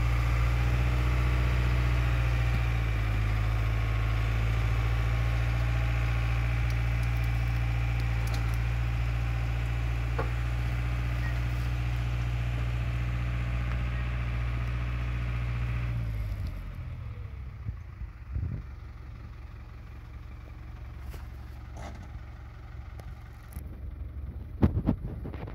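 The tow vehicle's engine runs steadily, then stops suddenly about two-thirds of the way through. A few sharp knocks follow near the end.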